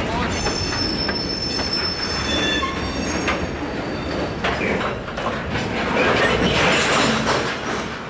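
Freight train of covered hopper cars rolling past, with steel wheels squealing in high thin tones during the first few seconds over a steady rumble and knocks of wheels over the rail joints. It grows louder for a moment near the end.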